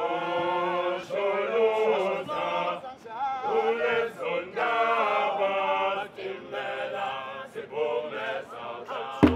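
Male a cappella vocal group singing in harmony, held chords in phrases with short breaks between them.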